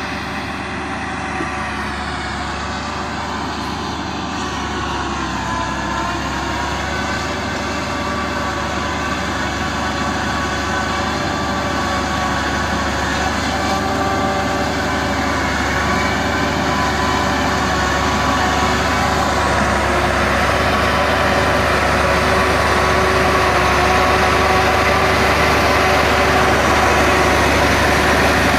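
Engine-driven silage-making machinery running steadily, an engine drone with a whining tone that grows slowly louder.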